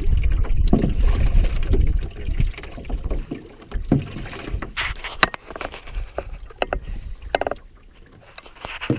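A canoe being paddled with a wooden birch paddle: strokes through the water with short splashes, drips and light clicks every second or so. Wind rumbles on the microphone for the first two seconds.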